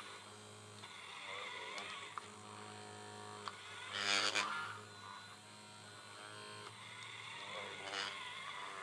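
Small electric motors of a radio-controlled road roller model whining, their pitch rising and falling over a steady low hum, with a louder burst about four seconds in and a shorter one near the end.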